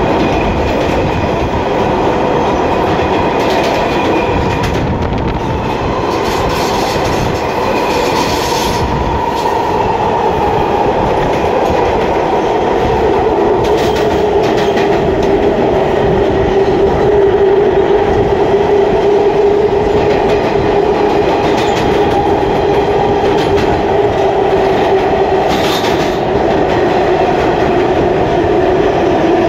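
R160A subway car running at speed, heard from inside the car: a steady rumble with a drone that sinks a little in pitch about halfway through, and occasional clacks over the rail joints.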